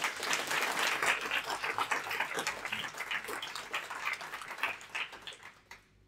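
Audience applauding, a dense patter of many hands clapping that thins out and dies away just before the end.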